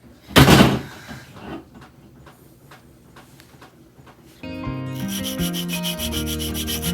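Hand sanding or rasping of a wooden lure body: one loud scratchy stroke about half a second in, then a run of faint rubbing strokes. Background music comes in about four and a half seconds in.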